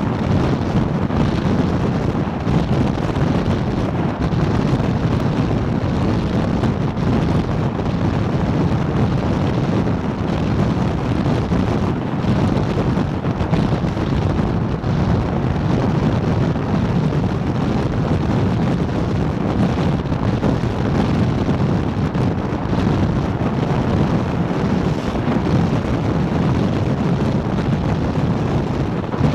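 Steady, even rush of wind buffeting the microphone of an MTI powerboat running at speed over open water, mixed with the boat's own running noise.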